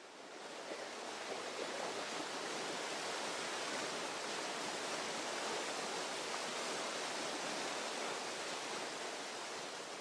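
Water rushing steadily down a small cascade over rocks into a pool, fading in over the first second or two.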